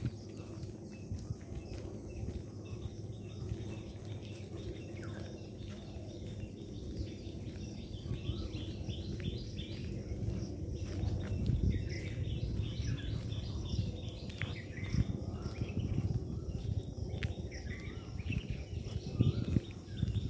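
Small birds chirping and calling over and over above a steady high insect drone, with a low scuffing rumble of footsteps that grows louder in the last couple of seconds.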